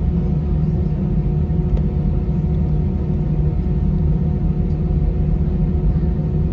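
Airbus A320-200's jet engines at taxi power, heard from inside the cabin: a steady low rumble with a steady hum over it.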